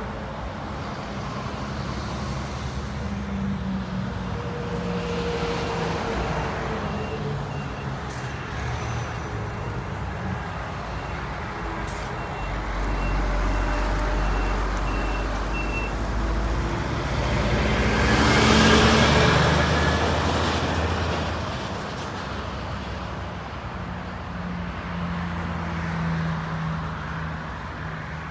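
Highway traffic: trucks and buses going by with engine drone and tyre noise, one vehicle passing close and loud about two-thirds of the way through. A repeating high beep sounds for several seconds in the middle.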